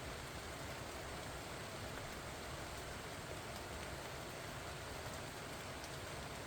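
Steady rain falling on pumpkin vines and their leaves: an even hiss with scattered faint drop ticks.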